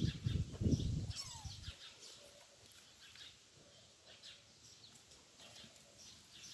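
Faint bird chirps in the background, short high calls repeating throughout. A low rumble on the microphone fills the first second or so, then it goes quiet apart from the birds.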